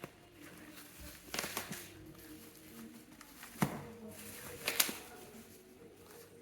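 Wooden packing crate being handled and pried at: a few sharp knocks and crackling clicks of wood, in clusters about a second and a half in, a sharp knock about three and a half seconds in, and more clicks near five seconds.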